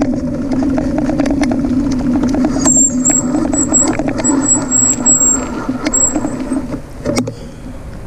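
Bicycle riding over rough, cracked asphalt: a steady rolling hum with constant rattling clicks, and a thin high squeal for a few seconds in the middle. The noise dies down about seven seconds in as the bike comes to a stop.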